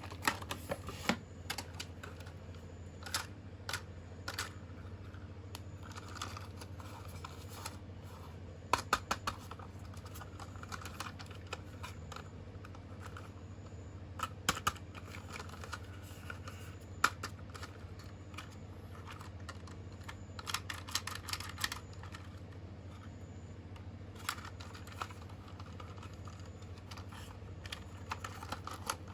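Irregular sharp clicks and taps, some in quick little clusters, typical of small plastic toy parts or packaging being handled, over a steady low hum.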